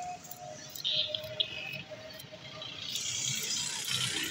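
A hand knife shaving the rind off a sugarcane stalk: rough scraping and rattling strokes that grow louder and more continuous about three seconds in.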